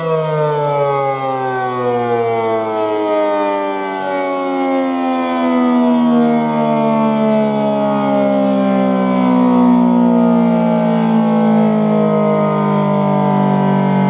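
ACA P-10 electromechanical warning siren winding down at the end of its full alert steady-tone test, its pitch falling slowly and evenly.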